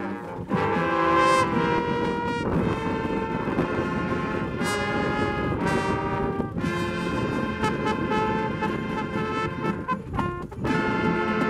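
Marching band brass section, trombones and trumpets, playing a tune in held chords that change every couple of seconds, with a short break near the end.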